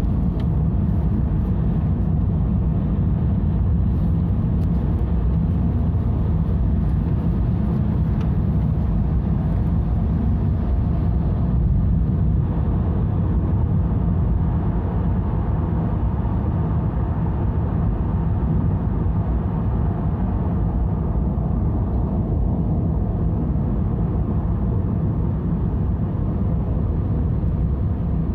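Steady road noise heard from inside a vehicle's cabin at motorway speed: an even, low rumble of tyres and engine.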